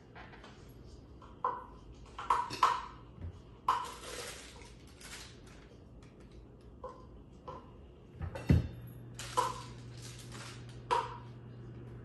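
A paper cup knocked, set down and pushed against a granite countertop by an African grey parrot's beak: a string of irregular sharp taps and clacks, with a short scraping rustle a few seconds in. The heaviest knock comes about eight and a half seconds in, and a low steady hum starts with it.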